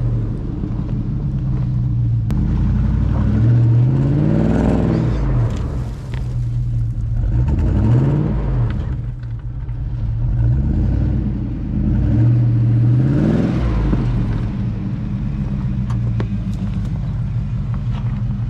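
Supercharged Range Rover P38 engine running under load off-road, revving up and easing off several times as it climbs and settles, over a steady rumble.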